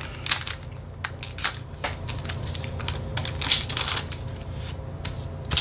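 Foil Pokémon booster pack wrapper torn open and crinkled by hand as the cards are pulled out. It makes an irregular run of sharp crackles, busiest about three and a half to four seconds in.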